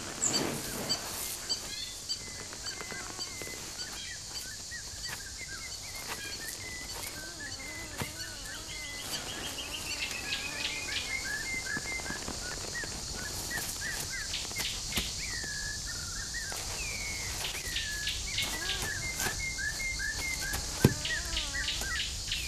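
Outdoor birdsong: many short chirping calls, with a beaded trill about nine seconds in, over a steady high hiss. A single sharp click near the end.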